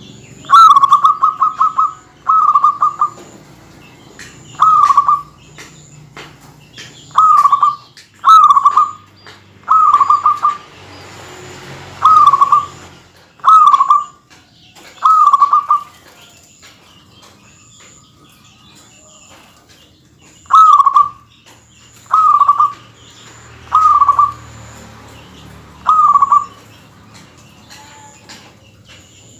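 Zebra dove (perkutut) cooing: a run of short, rapid staccato coo phrases repeated every one to two seconds. A faint, high, evenly repeated peep continues behind it.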